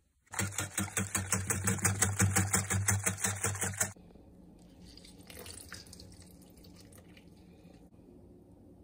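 Liquid being beaten rapidly in a glass bowl, about nine even strokes a second. It stops abruptly a little under four seconds in, leaving only faint handling sounds.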